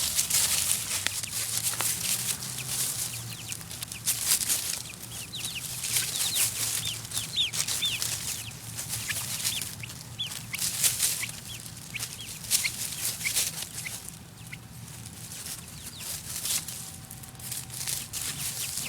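Five-week-old chicks scratching and pecking through dry leaves: near-constant crackly rustling, with many short, high, falling cheeps, most of them through the middle.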